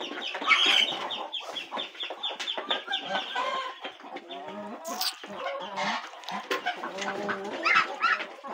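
A flock of chickens clucking and calling while they feed together from a bowl of rice, with quick runs of short repeated calls.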